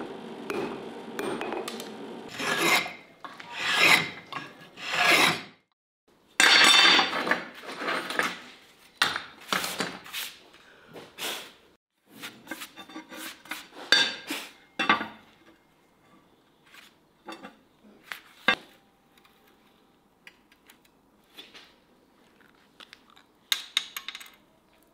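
Repeated rubbing, rasping strokes, each up to about a second long, coming in quick runs for the first fifteen seconds, then thinning to scattered short scrapes and ticks.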